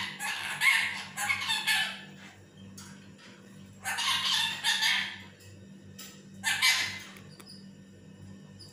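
Lutino Indian ringneck parakeet squawking harshly in three bursts: a long one of about two seconds at the start, another of over a second about four seconds in, and a short one about six and a half seconds in.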